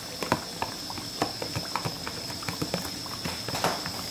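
A metal spoon scraping onion paste out of a container into a metal cooking pot, with irregular clicks and taps of the spoon against the container and the pot's rim.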